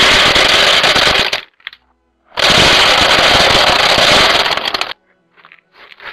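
Dry cat kibble pouring through a wooden feeder's chute and rattling into a wooden bowl, in two loud pours: the first stops about a second and a half in, and the second runs from about two seconds in until near five. A few faint clicks of pieces settling follow.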